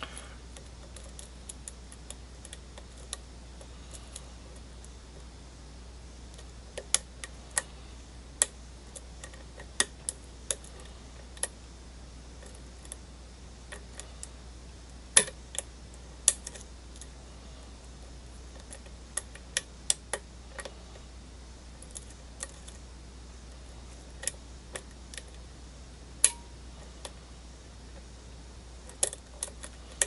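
Irregular sharp metallic clicks of a thin Peterson Gem hook pick working the pin stacks of a brass half Euro cylinder under tension, some clicks louder than others.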